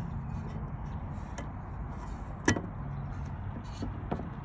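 A single sharp plastic click about two and a half seconds in, with a few fainter ticks, as the fuel-cap tether's clip is pushed into its hole in the fuel door. A steady low rumble runs underneath.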